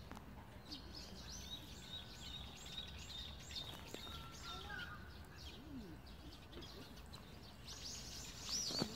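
A bird singing a quick series of high, arched chirps, about three a second, for the first few seconds and again near the end, over faint outdoor background noise.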